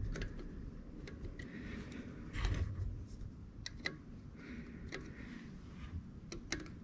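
Light metallic clicks and scrapes of a steel pick probing a newly installed cam bearing in an LS engine block, checking that the bearing's oil hole lines up with the oil galley. The ticks come scattered and irregular, with a duller knock about two and a half seconds in.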